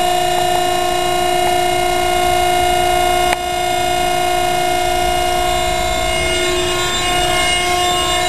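Hydraulic power unit of a tensile test bed running with a steady whine as it loads a steel strand toward failure. A sharp click about three seconds in, after which the whine carries on slightly quieter.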